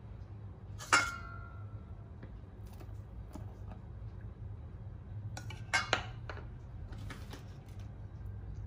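Kitchen utensils and dishes clinking: one sharp strike that rings on briefly about a second in, then a quick cluster of clinks and taps around six seconds and a few lighter taps after. A steady low hum runs underneath.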